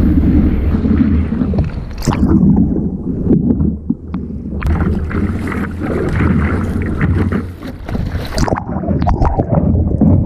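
Wind buffeting the microphone over water splashing and rushing around a stand-up paddleboard in the surf.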